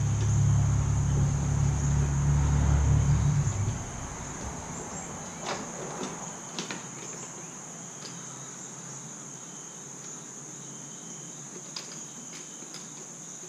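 Steady high insect drone throughout, with a low engine rumble that dies away about three and a half seconds in. Later come a few light plastic clicks and knocks as the fuel pump module is fitted into the tank opening.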